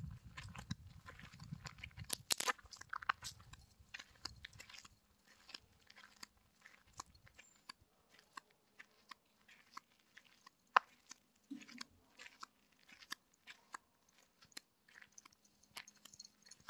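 Faint, irregular crunching steps on a gravel and dirt path, with a low rumble in the first few seconds and one sharper click about eleven seconds in.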